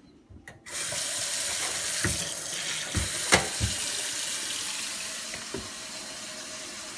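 Kitchen faucet turned on under a second in and running steadily into the sink, with a few knocks, the loudest a sharp one about three seconds in. The flow sounds a little softer near the end.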